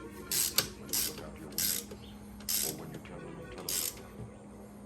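Hand ratchet wrench clicking in short strokes, one burst roughly every second, as bolts are tightened, over a faint steady hum.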